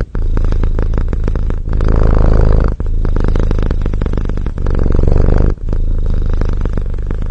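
Domestic cat purring loudly close up, a rough, continuous purr that swells and eases in turn about every second and a half as the cat breathes in and out.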